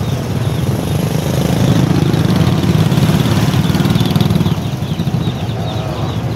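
Small motorcycle engine running at low speed while riding slowly, a dense pulsing rumble that grows a little louder for a couple of seconds in the middle, then eases back.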